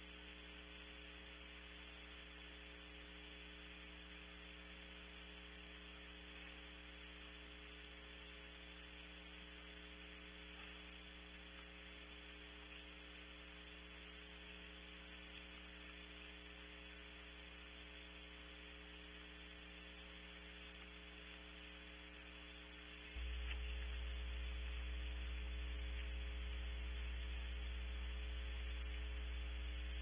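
Steady electrical mains hum with a hiss, picked up by a wildlife nest camera's audio feed; about 23 seconds in the hum suddenly grows louder and stays that way.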